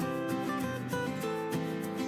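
Background music: acoustic guitar-led instrumental with a steady strummed rhythm.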